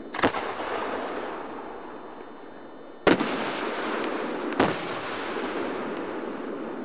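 Aerial firework shells bursting: a double boom near the start, the loudest boom about three seconds in, and another at about four and a half seconds. Each boom trails off in a long echo.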